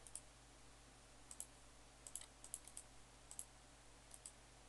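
Faint computer mouse button clicks, several in quick pairs like double-clicks, about six times, over a low steady hum.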